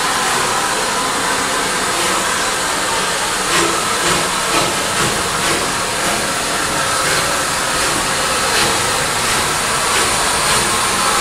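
Bulleid Battle of Britain class Pacific steam locomotive, a three-cylinder engine, pulling away slowly under a steady hiss of steam. Slow, unevenly spaced exhaust beats come in from about three and a half seconds in.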